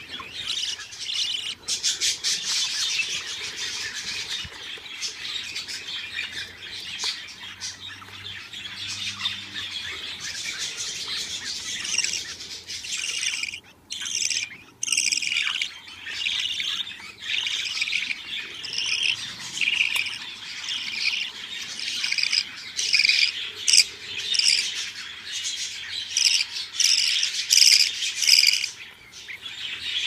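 Budgerigar chicks begging with a dense chatter of high cheeps while their mother feeds them. There is a short lull about fourteen seconds in. After that the cheeps grow louder and come in a regular pulse, about two a second.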